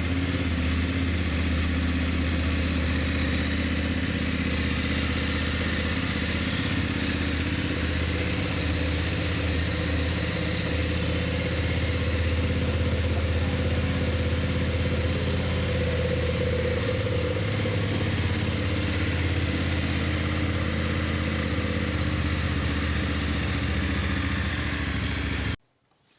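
BMW motorcycle engine idling steadily just after being started, then cutting off abruptly near the end.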